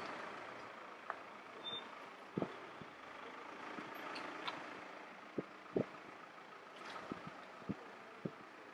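Footsteps on a paved street, a handful of soft irregular steps, over a steady hum of distant traffic.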